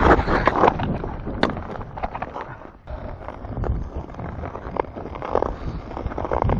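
Ice skate blades scraping and knocking over rough, crumbly lake ice, with wind rumbling on the microphone. There is a brief lull about three seconds in.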